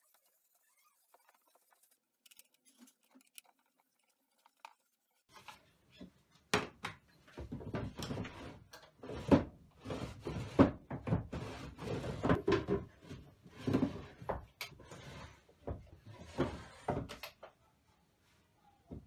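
Wooden drawers being slid into a wooden cabinet and pushed home, a quick run of knocks, thuds and short scrapes that starts about five seconds in and stops shortly before the end. The drawer sides are waxed with beeswax.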